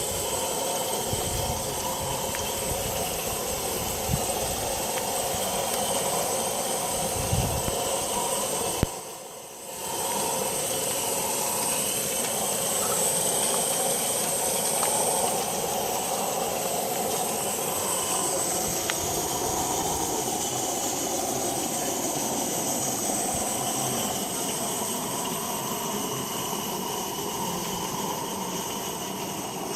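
Accucraft NG16 Garratt live-steam garden-railway locomotive running, with a steady hiss of steam. The sound drops away briefly about nine seconds in, then returns.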